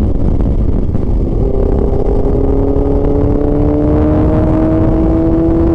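Motorcycle engine and heavy wind rumble on the rider's microphone while riding. About a second in, the engine note rises slowly and steadily as the bike gains speed.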